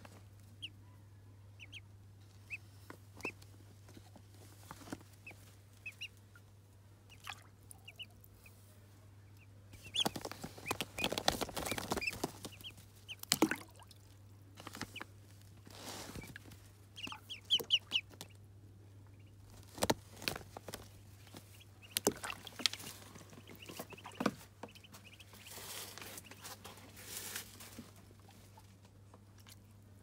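Muscovy ducklings peeping in short, high calls, over crinkling rustles of a foil-lined bag as the ducklings are handled and shuffle about in it. A faint steady low hum runs underneath.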